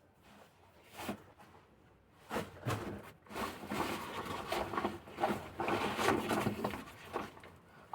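Rustling and light knocking of camping gear being handled, with a sleeping bag being unpacked and unfurled. The handling starts about two seconds in and carries on irregularly.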